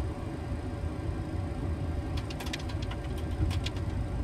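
Boeing 737-800 flight deck while taxiing: a steady low rumble from the idling engines, with a faint steady hum over it. About two seconds in comes a quick run of light clicks, lasting a second or two.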